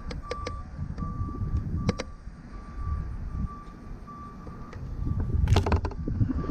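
A vehicle's reversing beeper sounding steadily, a little over one beep a second, over a low rumble. Scattered sharp clicks, with a louder cluster of clacks about five and a half seconds in.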